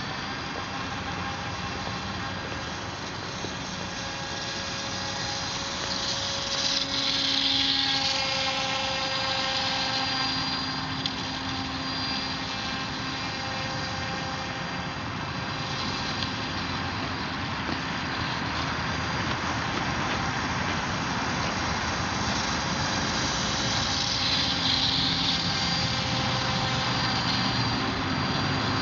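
Rimfire 2400 kV brushless electric motor spinning the propeller of an RC snowmobile: a steady buzzing whine with several tones that shift a little in pitch as the throttle changes. It gets louder about seven seconds in and again near the end.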